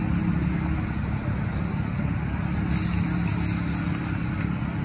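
A steady low motor hum, like an engine running, with a few short high rustles about three seconds in.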